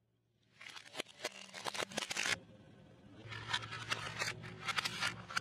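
Plastic toys cracking and crunching under a car tyre: two bouts of rapid crackling snaps, the first about half a second in and the second from about three seconds in.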